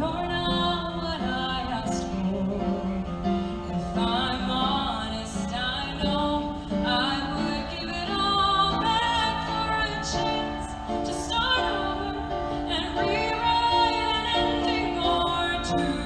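Music with a woman singing, long held notes over a steady accompaniment.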